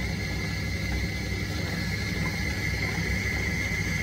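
Metal lathe running with no cut, its chuck spinning a steel blank: a steady low hum with a constant high whine over it.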